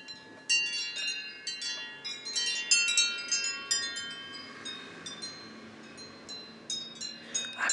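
Wind chimes ringing irregularly, many high tones struck and overlapping. They are busiest about three seconds in, die away, and pick up with fresh strikes near the end.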